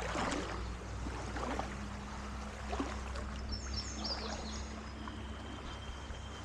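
Small creek's water running in a steady rush, with a few brief high chirps partway through.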